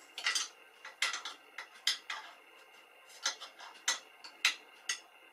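Sharp light metallic clicks and clinks, about eight to ten at irregular spacing, from parts of a Super 8 film projector's mechanism being handled during a repair.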